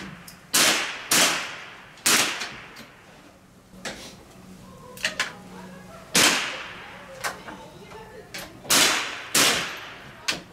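Rifle shots from several shooters on a firing line, fired at uneven intervals: six loud reports, with several fainter cracks between them.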